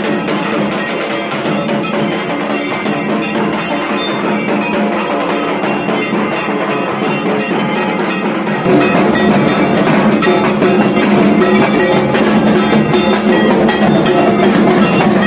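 Dhak, the large Bengali festival barrel drums, beaten with thin sticks in a fast, dense rhythm. It turns suddenly louder about nine seconds in.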